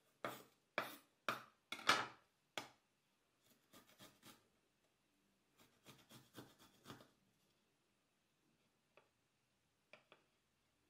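Kitchen knife chopping on a wooden cutting board, about six sharp strokes in the first three seconds, then quieter runs of rasping as an aromatic is rubbed across a flat metal hand grater, and a few light taps near the end.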